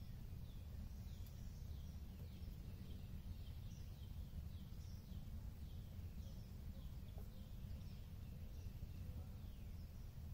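Small birds chirping from the shoreline trees, a steady run of short falling chirps about two a second, over a low steady rumble.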